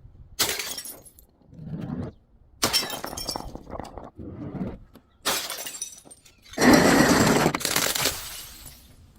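Glass bottles breaking and being crushed: four sharp breaks, each followed by crunching and crackling of shards. The loudest and longest comes about two-thirds of the way through.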